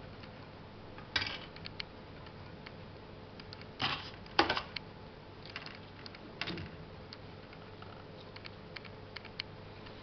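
Small scratchy clicks and rustles of fingers and a wooden skewer working in perlite-mixed potting soil in a thin plastic tray, a few louder ones about a second in, twice around four seconds and once past six seconds. A faint steady hum underneath.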